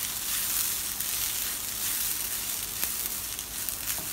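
Washed rice and dal sizzling steadily as they roast in hot ghee in a non-stick pan, turned over with a silicone spatula, with a few faint scraping clicks.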